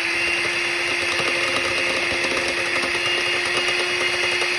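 Electric hand mixer running steadily at one speed with a high motor whine, its beaters churning a thick filling of cream cheese, shredded cheese and brisket.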